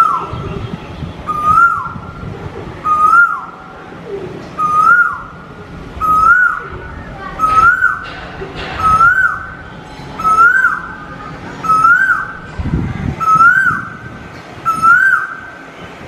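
Male Asian koel calling, repeating the same rising note about every second and a half.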